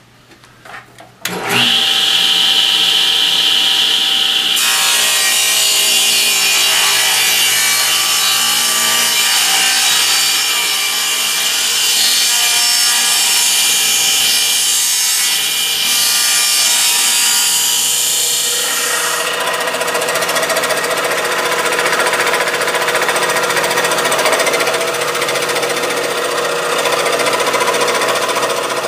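Table saw switched on about a second in and ripping a wooden board to length. A high whine comes as the blade spins up, then a loud steady cutting noise. The sound changes about 19 seconds in as the cut goes on.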